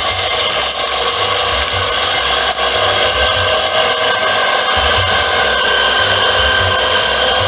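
Homemade vegetable chopper driven by a reused water-pump electric motor, running steadily with a high whine and an uneven low rumble underneath.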